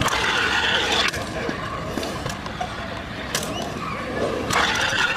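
Kick scooter wheels rolling fast over concrete close by, a rough rolling hiss for about the first second and again near the end, with a few sharp clacks of the scooter striking the ground in between.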